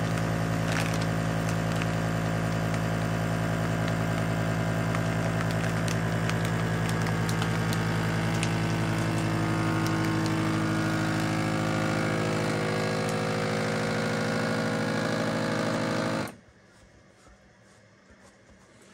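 GameSaver Titanium vacuum sealer's pump running steadily as it draws the air out of a bag, then cutting off suddenly near the end once the bag is pulled down.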